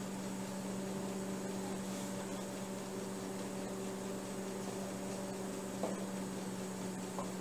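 Steady electrical hum, with a couple of faint light taps late on.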